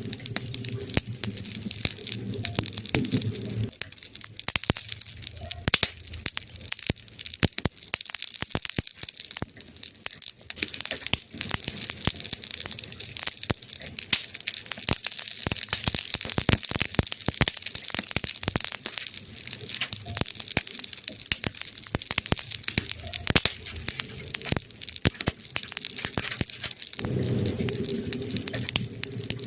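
Wood campfire crackling and popping, sharp snaps coming irregularly over a steady hiss. A low rumble sits under it for the first few seconds and comes back near the end.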